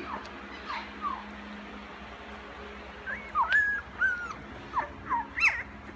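Week-old chocolate Labrador puppies whimpering: a couple of short, high squeaks about a second in, then a busier run of short rising-and-falling whimpers from about three seconds in.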